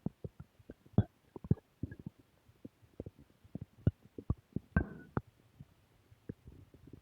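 Human stomach growling: a run of irregular gurgles and small pops, with a longer bubbling gurgle a little before five seconds in.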